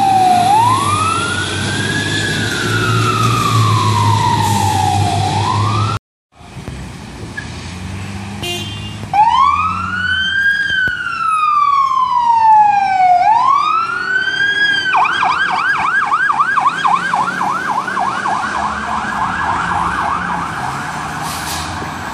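Fire engine sirens. A fire truck's siren wails, slowly rising and falling, over the low rumble of its engine. After a break, another fire apparatus's siren starts up in the same slow wail and, about two-thirds of the way through, switches to a fast yelp of about three warbles a second.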